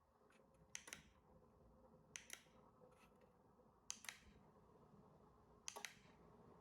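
Faint, sharp clicks, four in about six seconds, each a quick double click, from a wireless remote's buttons being pressed to switch a Wi-Fi smart lamp holder on and off.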